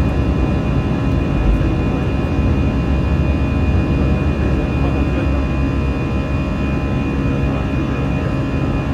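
Airliner's jet engines running at climb power after takeoff, heard from inside the passenger cabin: a steady, loud rumble with a constant high whine over it.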